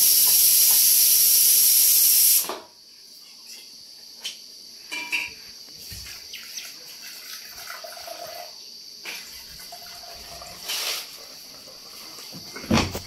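Pressure cooker boiling potatoes, letting off steam with a loud hiss that cuts off suddenly about two and a half seconds in. After it, a faint steady high tone, a few small clicks, and one sharp knock near the end.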